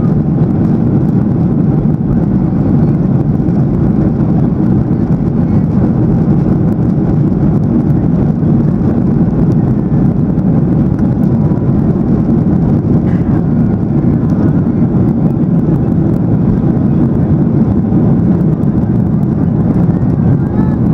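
Boeing 737-800 takeoff roll heard from inside the passenger cabin: its CFM56-7B turbofan engines at takeoff thrust make a loud, steady low rumble as the jet accelerates down the runway and rotates near the end.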